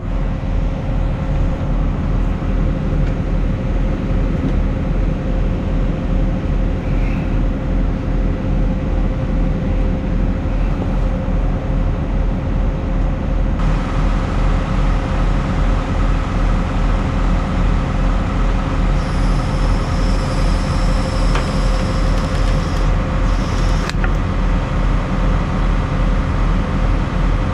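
Hitachi Zaxis 250 excavator's diesel engine running steadily with a deep, even throb while the bucket is set down. About halfway through the sound gets brighter, and higher tones join in later.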